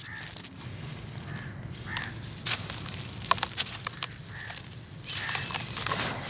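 Dry, gritty charcoal powder being scooped by hand in a plastic tub and let fall through the fingers. The grains and small lumps crumble and patter down with scattered sharp crackles.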